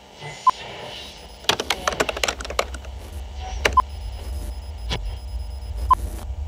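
Computer keyboard typing: a quick run of key clicks for about a second, with a few more clicks after, as a command is entered on a terminal. Three short high beeps fall among the typing, over a low steady hum.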